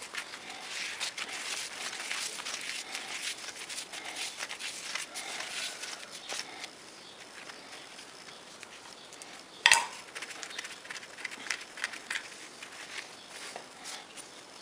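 Hand tap being turned with a bar tap wrench in a hole in a steel plate: dense crunchy scraping and clicking as the tap cuts the thread, easing off about halfway. About ten seconds in, a single loud sharp click.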